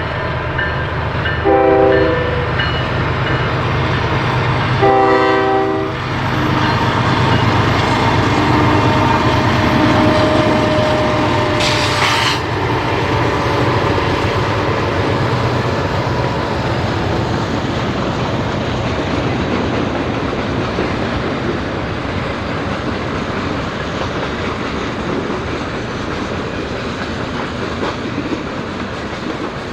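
Diesel freight locomotive sounding its horn for a grade crossing: a short blast, then a longer one, both multi-tone chords. Then a steady rumble and clatter of the freight train's wheels on the rails as the cars roll past, with one sharp crack about twelve seconds in.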